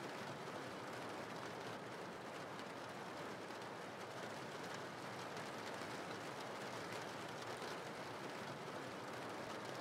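Steady rain, a soft even hiss with no other sound over it.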